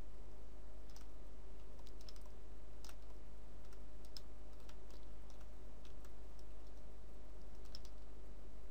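Scattered clicks of a computer mouse and keyboard, a dozen or so at uneven intervals, over a steady low hum.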